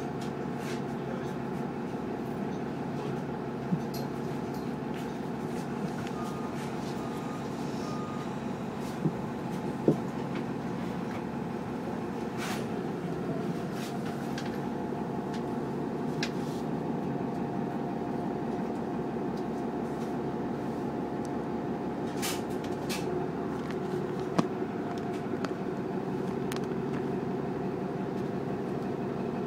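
Inside a Nova Bus LFS city bus under way: its Cummins L9 diesel engine and drivetrain hum steadily, with scattered clicks and rattles from the cabin. Three short faint beeps come about six seconds in.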